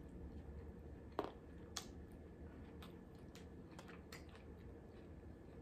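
Faint small clicks and ticks from a person eating quietly, over low room noise, with the sharpest click about a second in.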